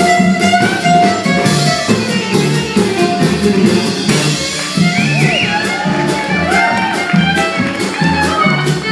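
Acoustic string band playing live, with guitar and fiddle over a steady beat. About halfway through, a lead instrument plays a run of quick sliding, bending notes.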